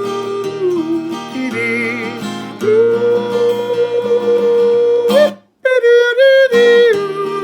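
Acoustic guitar strumming under long held, wordless sung notes that step between pitches, a yodel-style ending. The sound cuts out for a moment about five and a half seconds in, then returns on a higher held note.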